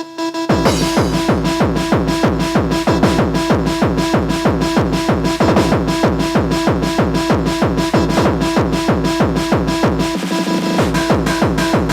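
Techno track playing: a steady kick-drum beat under a held synth tone. The kick and bass come in about half a second in, and the low end drops out for under a second near the end before returning.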